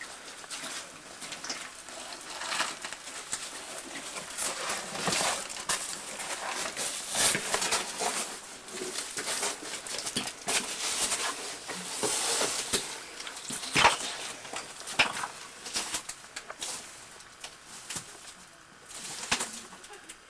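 Irregular scraping, knocking and rustling of a caver in coveralls and knee pads crawling through a tight cave passage, with a few sharper knocks.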